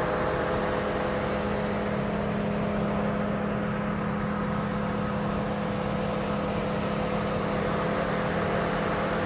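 Steady hum of vehicle engines and traffic, with a constant low drone and no sudden sounds.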